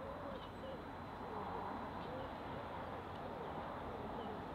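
A distant Class 66 diesel locomotive approaching, its engine noise faint and slowly growing from about a second and a half in. A pigeon cooing and small birds chirping over it.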